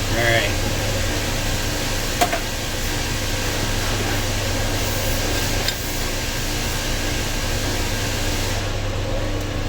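Steady hum and hiss of running machinery, with a strong low drone and a couple of light clicks.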